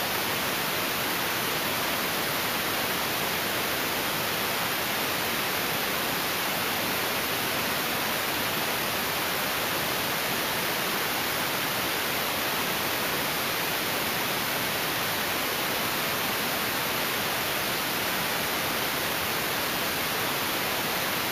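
A steady, even hiss like static, with no rise, fall or rhythm in it.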